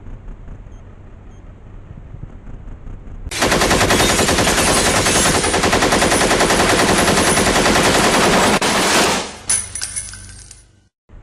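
Rapid automatic gunfire starting suddenly about three seconds in and running for about six seconds, then a short ringing tail that cuts off abruptly near the end. Low steady rumble before and after.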